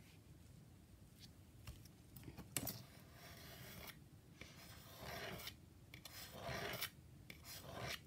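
A craft knife drawn along a metal ruler, cutting a strip off a paper tag in several scraping strokes, each about half a second to a second long, starting a couple of seconds in.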